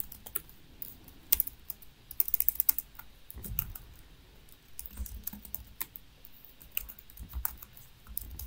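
Typing on a laptop keyboard: irregular key clicks, with a quick run of keystrokes a little over two seconds in.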